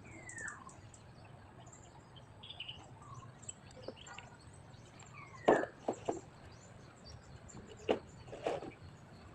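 Birds chirping in short falling whistles, with several sharp clicks and knocks a little past halfway and again near the end, over a faint low steady hum.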